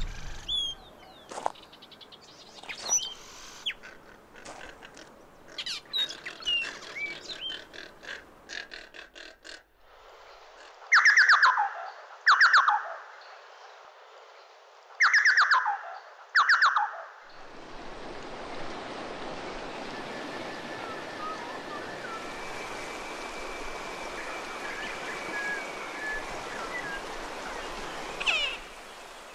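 Birds calling: scattered short chirps, then four loud calls in two pairs, each sweeping downward in pitch. After that comes the steady rush of a fast-flowing river, with a faint thin whistle above it and one sharp chirp near the end.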